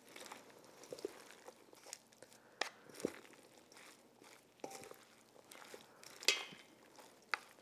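Lettuce salad with mayonnaise dressing being tossed and mixed in a bowl: soft crunching and rustling of the leaves with scattered light clicks, the sharpest about six seconds in.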